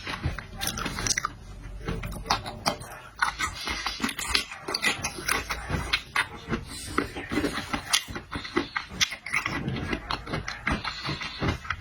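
Chewing of marinated shrimp with many quick, irregular wet mouth clicks.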